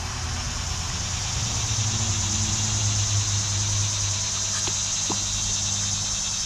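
A steady low engine hum that swells in the middle and eases off, over a steady high-pitched buzz, with a few faint clicks about five seconds in.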